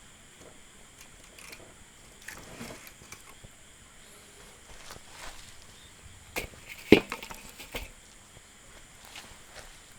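Dry firewood cracking and knocking as it is broken and handled for a campfire: scattered sharp snaps, with a cluster of louder cracks about seven seconds in.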